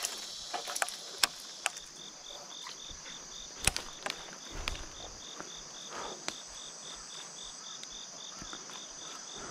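Insects chirping in the surrounding woods: a steady high trill with a pulsed chirp repeating about four times a second through most of the stretch. A few short, sharp clicks stand out above it.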